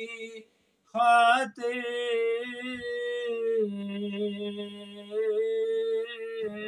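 A man singing an Urdu manqabat in slow, long-held notes, drawing out the words of the line. A short break about half a second in is followed by a louder, rising phrase.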